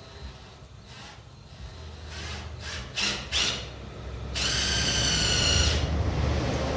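Cordless impact driver running a self-tapping screw into the truck's sheet-metal body to bore a hole: a few short bursts, then a longer run of about a second and a half with a steady high whine.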